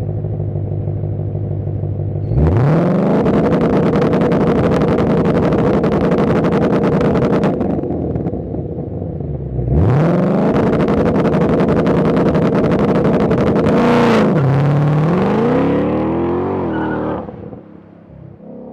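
2021 Ford Mustang Shelby GT500's supercharged 5.2-litre V8 on its stock exhaust, rumbling low, then revved hard twice to a high held note, the second run dipping and climbing again before the sound fades near the end.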